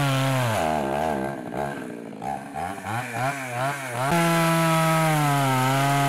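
Two-stroke chainsaw cutting through a fallen tree trunk. The engine runs at a steady high pitch, sags and wavers for a few seconds as it works in the cut, then steadies high again about four seconds in.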